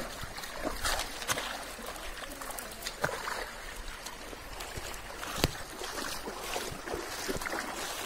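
Shallow rocky river flowing, with a few sharp splashes in the water, the loudest about five and a half seconds in.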